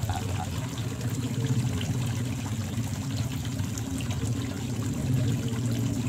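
Steady running water trickling and pouring.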